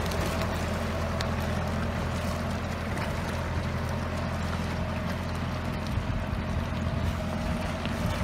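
Antonio Carraro TRX 9900 compact tractor's diesel engine running steadily under load as it skids a large log through mud, a constant low hum with no revving.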